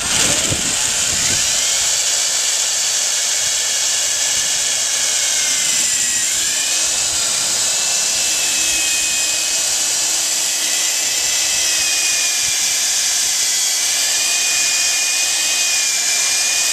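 Corded electric drill running continuously at speed, its bit boring through the plastic top of a 55-gallon barrel. A steady high whine whose pitch dips slightly about five seconds in, then holds.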